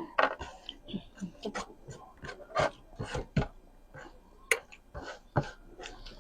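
Close-up mouth and hand sounds of eating crab: a quick irregular run of sharp clicks, cracks and wet smacks as the shell is broken and the meat sucked and chewed.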